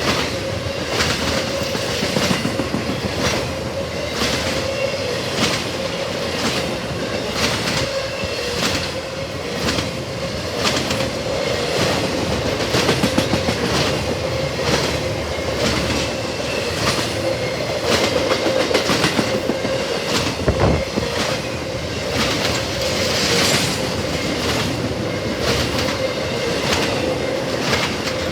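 Freight cars of an intermodal train rolling past, wheels clicking over rail joints in a steady clickety-clack about every three-quarters of a second, with a steady ringing tone from the rolling wheels underneath.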